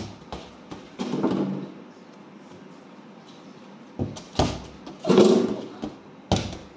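A ball knocking sharply off the walls and floor of a small walled courtyard, several separate hits about four and six seconds in, with two brief bursts of children's voices between them.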